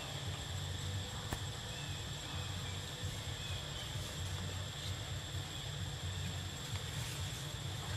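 Insects droning steadily at a high pitch in the forest, over a low, uneven rumble.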